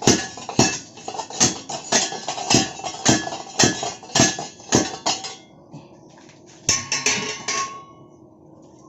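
Repeated metal-on-metal hammer strikes, about two a second, on the Suzuki APV's catalytic converter to knock out its loose, rattling insides. After about five seconds the strikes pause, then a few quick hits come near the end.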